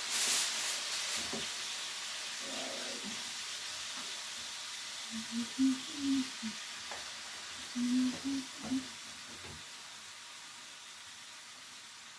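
Chicken pieces sizzling in hot olive oil in a frying pan. The sizzle flares briefly right at the start, then dies down steadily. A few short low sounds come in around the middle.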